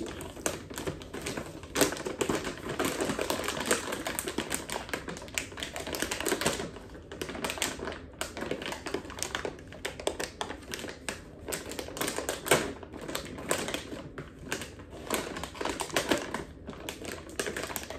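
Plastic bag of peppermint popcorn crinkling and crackling as hands pull and twist at its sealed top, trying without success to tear it open; a dense run of irregular crackles.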